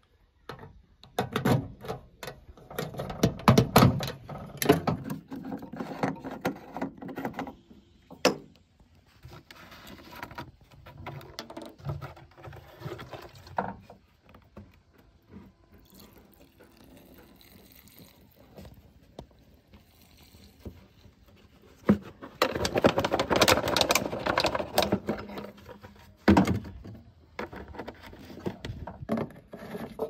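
Close-up handling noises of refuelling a tractor's diesel tank by hand: a key clicking in the fuel-flap lock and a plastic filler cap being unscrewed, a soft stretch as diesel is poured in from a plastic bottle, a loud burst of plastic rustle and clatter about three-quarters of the way through, and clicks as the cap is screwed back on near the end.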